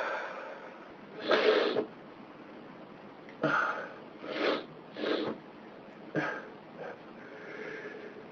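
A person sniffing and gasping, about six short breathy sounds with pauses between them, the longest about a second in, in the middle of a bout of sneezing.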